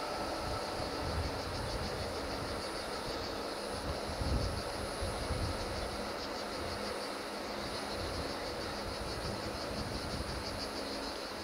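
A fuel train's tank wagons rolling past with a low, uneven rumble, partly wind buffeting the microphone. A steady pulsing chorus of cicadas runs over it.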